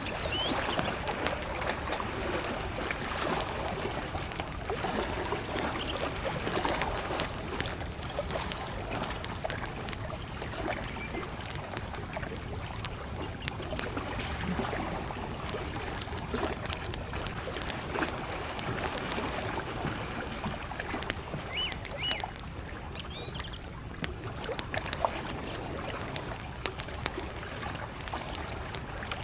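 Campfire crackling with many sharp pops, over small lake waves lapping against the shore. A few short, high bird chirps sound in the distance in the second half.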